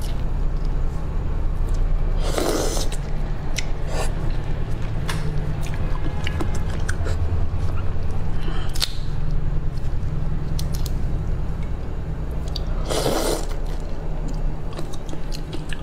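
Gloved hands peeling raw soy-marinated shrimp: the shells crack and tear in many small clicks, with two short louder rushes of noise about 2.5 s and 13 s in. A steady low hum runs underneath.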